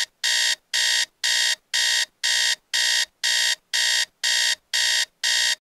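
iPhone alarm ringing: a string of identical electronic beeps, about two a second. It stops abruptly near the end when the alarm is shut off.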